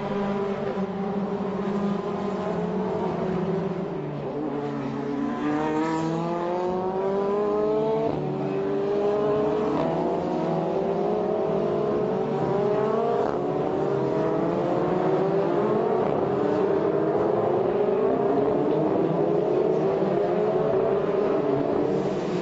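A pack of Formula Renault 2.0 single-seaters accelerating, their 2.0-litre four-cylinder engines at high revs. Several engines overlap, each pitch climbing and dropping back again and again as the cars shift up through the gears.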